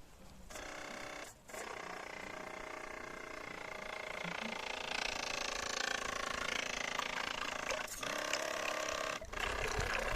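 Small 12 V DC motor of a model boat running at steady speed, spinning its propeller shaft with a constant whine, broken off briefly a few times.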